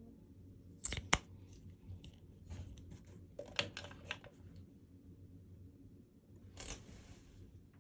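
Packaging being handled and opened by hand: two sharp clicks about a second in, a run of small clicks and rustles in the middle, and a short rustle of paper or plastic near the end.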